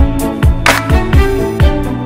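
Background music with a steady beat: deep kick-drum hits that fall in pitch, about two a second, a sharp hit about 0.7 s in, over sustained chords.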